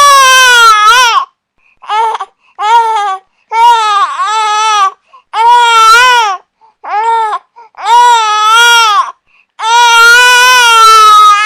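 Infant crying: a string of loud wails, each up to about a second and a half long, broken by short pauses for breath, with a couple of shorter sobs in between.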